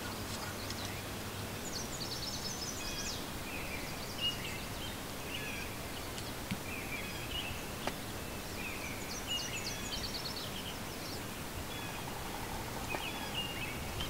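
Songbirds singing: high, quick trilled phrases repeat about two seconds in and again between nine and eleven seconds, with scattered chirps in between, over a steady outdoor background hiss.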